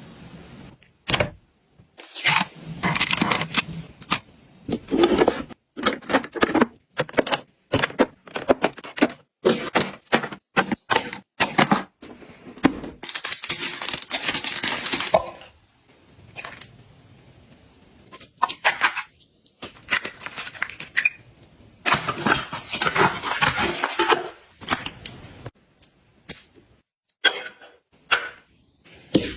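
Close-up handling sounds of objects being picked up and set down: rapid runs of clicks, taps and light knocks, with a few longer stretches of rustling and scraping.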